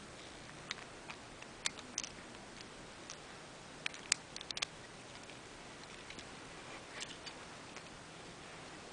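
Faint, scattered sharp clicks of plastic and metal Beyblade parts (Earth Virgo's clear energy ring and metal fusion wheel) being fitted together by hand during assembly.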